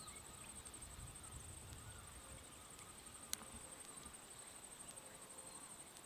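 Faint outdoor ambience: a steady, high-pitched, finely pulsing insect trill, with a few faint bird chirps. A single sharp click about halfway through.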